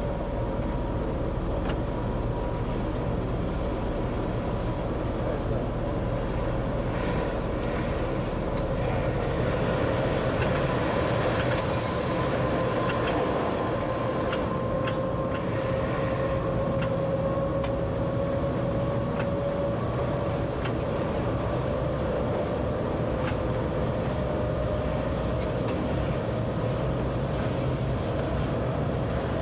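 Train running on the rails, heard from the driver's cab: a steady rumble with a humming tone that slowly drifts in pitch, and scattered clicks from the wheels. A short high wheel squeal comes about eleven seconds in.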